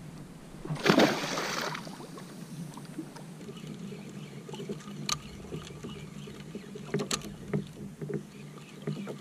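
A splash about a second in as an almaco jack is released over the side of the kayak. After it come water lapping around the hull and a few light knocks.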